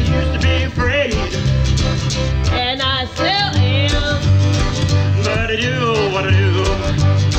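Background music: a song with guitar over a steady bass beat.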